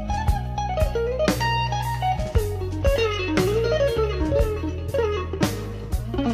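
Background music: a bluesy electric guitar lead with bending notes over sustained low notes and a regular beat.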